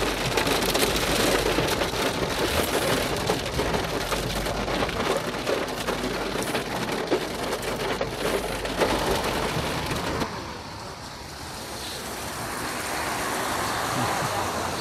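Heavy rain hitting a car's roof and windshield, heard from inside the car as a dense rush of drops. About ten seconds in it cuts to a quieter, steady outdoor background.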